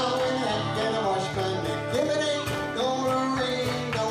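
Live fiddle and acoustic guitar playing a tune together, the fiddle carrying a sliding melody over steady strummed guitar.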